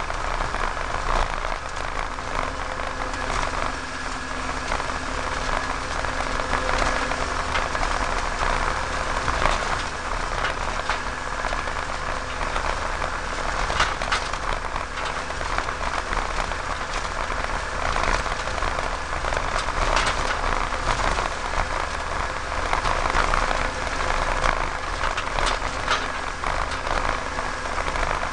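Farm machinery running steadily during feed mixing: an engine hum under a constant crackling, hissing rattle with scattered small clicks.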